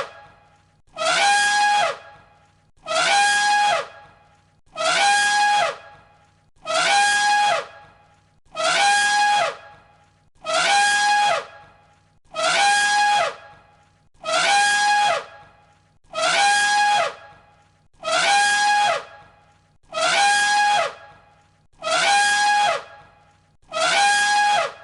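Elephant trumpeting: the same short, high call, about a second long and falling slightly at its end, repeated as a loop about every two seconds, thirteen times.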